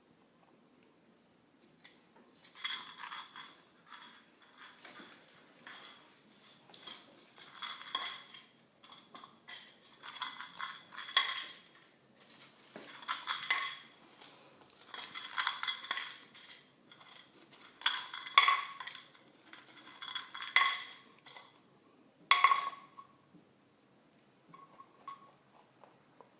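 A food bowl clinking and rattling in repeated bouts of a second or two, with a ringing tone, as a rabbit pushes at it to get at the Cheerios inside.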